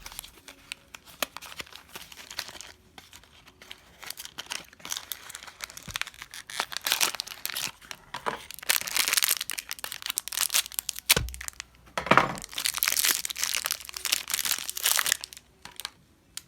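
Packaging of a new 6205 ball bearing being torn and crinkled open by hand, in irregular crackly spells, with one dull thump about eleven seconds in.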